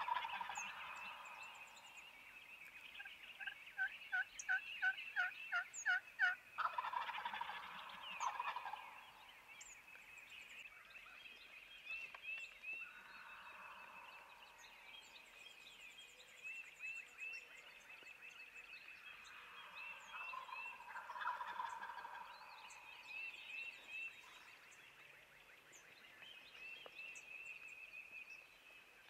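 Wild turkey toms gobbling, about four times: right at the start, near 7 s, 13 s and 21 s. A run of about ten quick yelps, about three a second, comes a few seconds in, and small birds chirp steadily behind.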